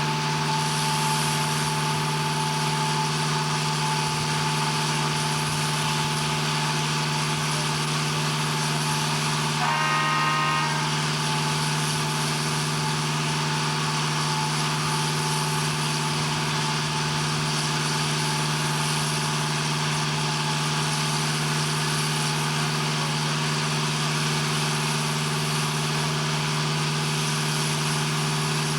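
Steady drone of heavy machinery or an engine running at a constant speed, with a short pitched tone lasting about a second near ten seconds in.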